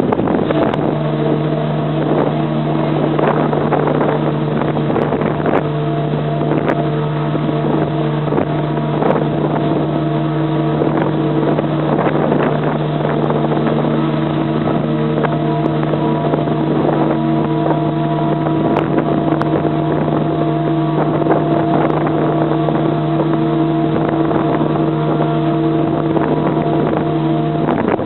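SS Normandie's triple bell steam whistle blowing one long blast on steam: a chord of several steady tones over a hiss, with part of the chord dropping out and coming back. The blast cuts off near the end.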